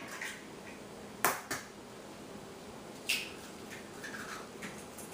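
Kitchen items being handled: a handful of sharp clicks and taps, the loudest just over a second in and another about three seconds in.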